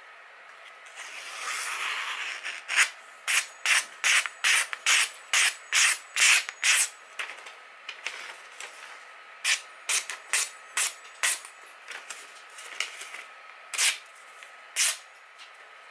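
Freshly sharpened kitchen knife slicing through a printed paper sheet in a paper-cutting sharpness test, each cut a short crisp hiss. It opens with the paper rustling, then comes a run of about ten quick cuts at roughly two a second, a pause, five more, and two last cuts near the end.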